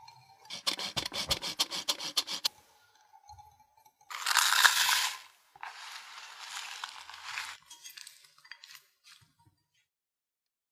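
Wire whisk beating against a glass bowl at about seven strokes a second, stirring melted butter into a sugar mixture. About four seconds in, sliced almonds are poured into the bowl with a loud rattling rush, then folded with a spatula, the almond flakes scraping and crunching against the glass.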